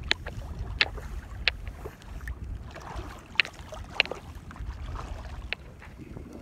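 Wind rumbling on the microphone over shallow water lapping, with half a dozen scattered sharp clicks.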